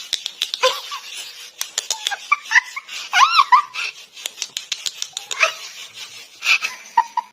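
A cat giving a few short high calls that rise and fall in pitch about three seconds in, amid many small clicks and taps.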